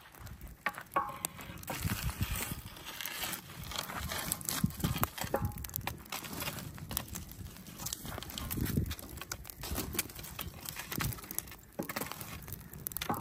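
Wood fire crackling and popping in a steel fire pit, with irregular knocks and scrapes as a stick pokes at the burning logs.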